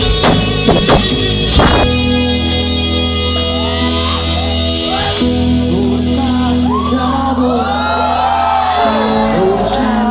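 A live rock band of electric guitar, bass and drum kit playing loudly. A few sharp drum hits come in the first couple of seconds, then sustained chords ring over a steady bass, with bending high notes weaving above them.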